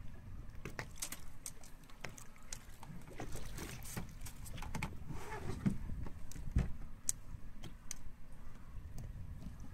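Steady low rumble of a fishing boat at sea, with scattered small clicks and knocks throughout, the loudest about six and a half seconds in.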